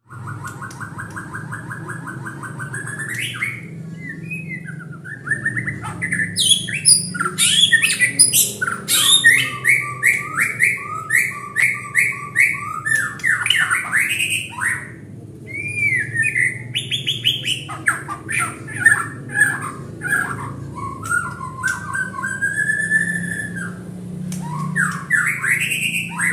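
Long-tailed Medan-type white-rumped shama (murai batu), a male, singing a long, varied song without a break: it opens with a fast run of repeated notes, then goes on with loud whistles, sharp high notes and chattering phrases.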